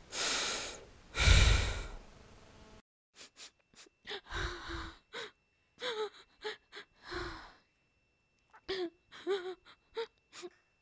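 A woman sobbing: short breathy gasps and brief wavering whimpers, coming in bursts. Two loud rushes of noise in the first two seconds come before it.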